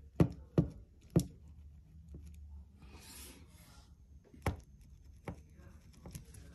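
Handling noises from fingers on a small plastic RC buggy chassis: three sharp clicks or taps in the first second or so, a brief rub about three seconds in, then two more clicks.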